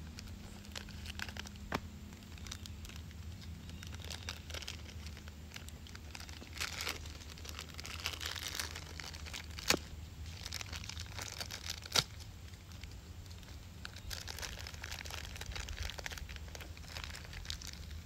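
Thin clear plastic blind bag crinkling and rustling as it is handled and opened, with three sharp clicks, the loudest two near the middle.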